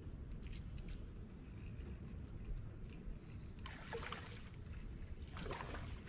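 Wind buffeting the microphone, a steady low rumble, with a few faint ticks near the start and two short rushing bursts about four and five and a half seconds in.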